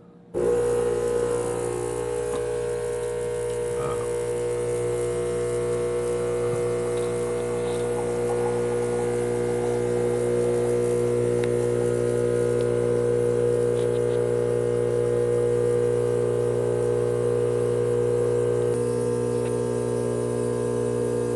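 Pump of a home espresso machine running steadily while it pulls a shot through the portafilter, a loud even hum that starts abruptly about half a second in.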